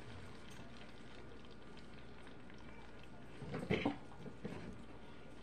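Faint steady hiss of butter and brown sugar heating in a pot on a gas burner, with one brief louder sound about three and a half seconds in.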